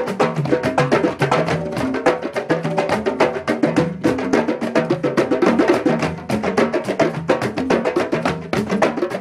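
Drum circle of several hand drummers playing congas together in a fast, dense rhythm, many strikes a second layered over ringing drum tones.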